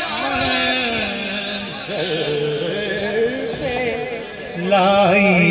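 A man singing a naat into a microphone through a sound system, in long, wavering, melismatic held notes. The voice drops lower and quieter around four seconds in, then comes back louder near the end.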